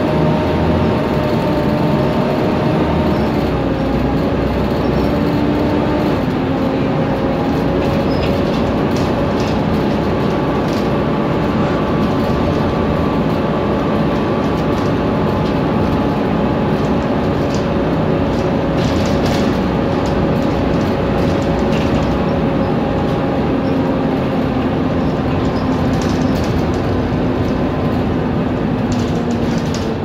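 Volvo B7TL double-decker bus under way, heard from inside the passenger saloon: a loud, steady engine and drivetrain whine of the kind enthusiasts call a 'hoover', over road noise and light rattles. The whine's pitch steps down slightly a few seconds in and then holds.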